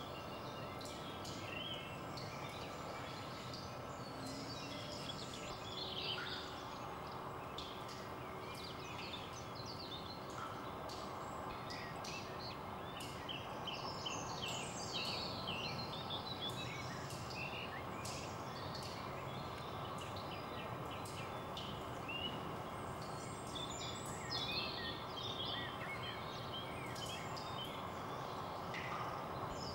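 Small birds chirping and twittering in many short high calls over a steady background hiss.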